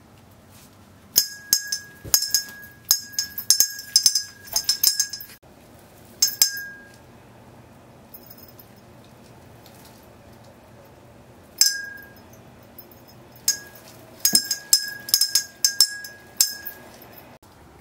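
Small bell hanging in a Christmas wreath ringing as a cat paws at it: rapid, irregular strikes, each ringing on briefly. They come in two spells with a pause of several seconds between them.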